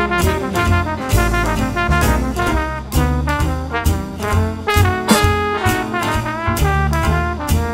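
Big band jazz: a brass section of trombones and trumpets playing chords together over a drum kit played with sticks, with sharp drum and cymbal hits through the phrases.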